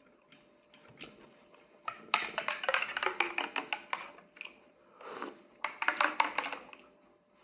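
A teaspoon stirring in a ceramic mug, clinking quickly against the inside in two bouts: one starting about two seconds in and another about five seconds in.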